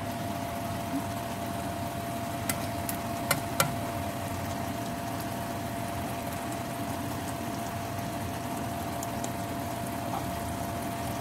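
Sliced pork frying in oil in a nonstick pan: a steady low sizzle over a constant hum with one thin steady tone, and a few sharp clicks between two and four seconds in.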